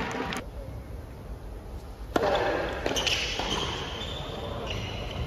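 Tennis ball struck by rackets in an indoor arena: a sharp crack about two seconds in, probably the serve, with the hall echoing after it, then further hits as the rally goes on.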